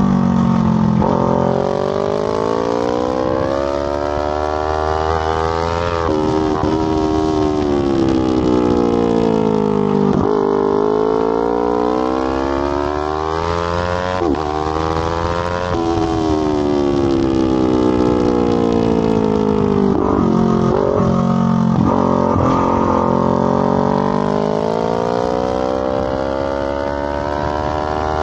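Sport motorcycle engine at speed on a racetrack: its pitch drops as the bike slows into each corner and climbs again as it accelerates out, over and over.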